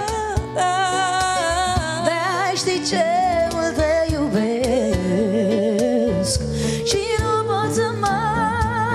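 Two women singing wordless, drawn-out notes with wide vibrato, backed by acoustic guitar and keyboard, in a live acoustic pop ballad.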